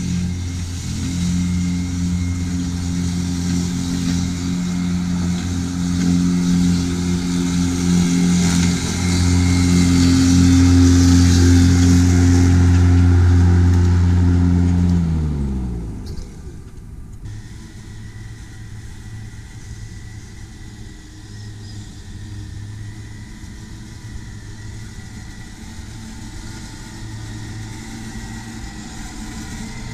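Petrol rotary lawnmower engine running steadily under load through long grass, then sliding down in pitch and stopping about halfway through. After that comes a quieter, steady hum of an Allett cylinder (reel) mower running.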